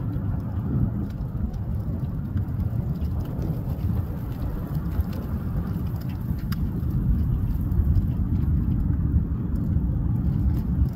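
Wind buffeting the microphone: a heavy, gusting low rumble.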